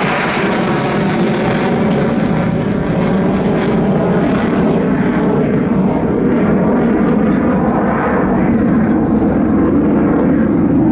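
F-15J fighter's twin F100 turbofan engines at full power with afterburners lit, a loud steady jet roar. The harsh high hiss fades after about two seconds as the jet pulls away, leaving a deep rumble.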